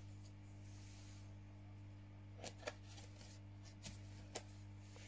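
A few light clicks and taps in the second half as a thin plastic deli cup and its ventilated lid are handled, over a steady low electrical hum.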